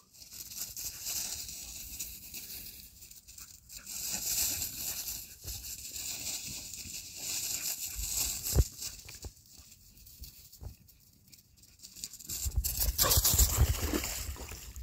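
Footsteps rustling and crunching through dry fallen leaves, with a few scattered thumps and a louder low rumble near the end.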